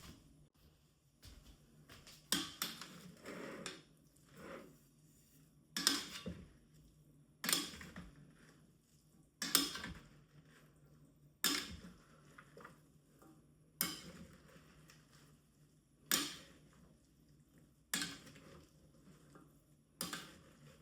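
A series of sharp clatters of hard objects, about one every two seconds, each ringing off briefly, like kitchenware being set down or knocked together.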